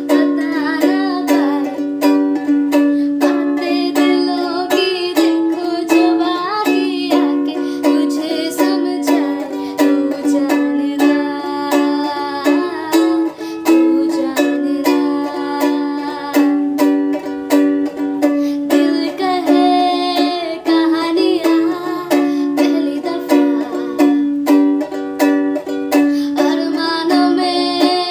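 Ukulele strummed in a steady, even rhythm, with a voice singing a melody over it.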